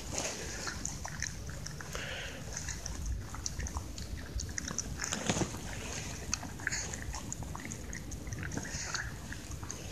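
Shiba Inu eating from a plastic bowl: quick, irregular chewing and smacking clicks over a low steady rumble.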